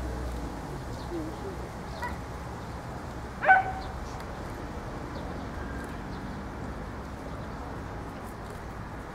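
A single short dog bark about three and a half seconds in, over steady background noise.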